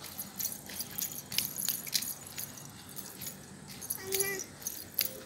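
Light, quick jingling clicks, several a second and unevenly spaced, from a toddler walking on asphalt. About four seconds in there is a short vocal sound from the child.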